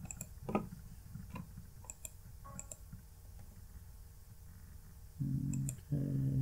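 Computer mouse clicks: sharp, separate ticks at irregular intervals. Near the end come two short, louder low hums.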